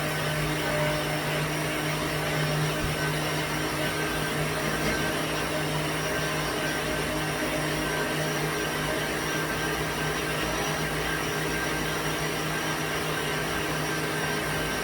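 Electric blender motor running steadily at one constant speed, pureeing plantain for porridge.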